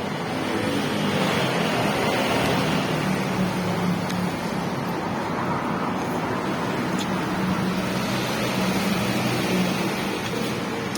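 Motor vehicle engine and road noise running steadily, with a low engine hum that wavers slightly in pitch.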